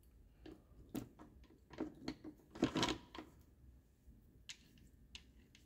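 Gear cluster and shaft from a 1967 Gravely 430 transmission clinking as they are handled and slid: a string of short metallic clicks and knocks, with a denser clatter about two and a half to three seconds in, then a few single clicks.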